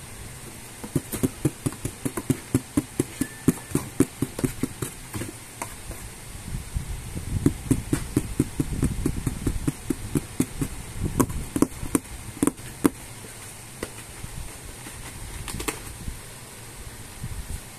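Two long runs of sharp, regular knocks, about three a second, with a single knock near the end.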